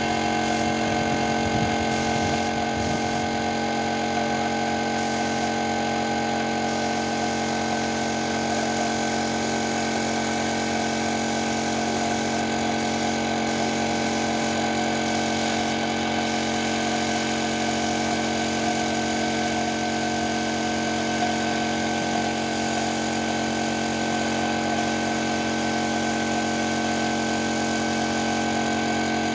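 Air compressor supplying a paint spray gun, running steadily: a constant hum made of several steady tones.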